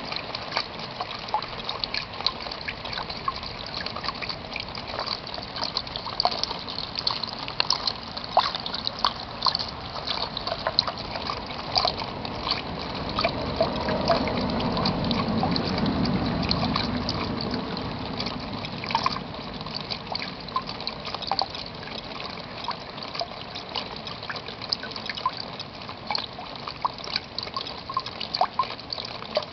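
Rain falling, with many close drops splashing and dripping throughout; a louder rush of water swells for a few seconds in the middle, then fades back.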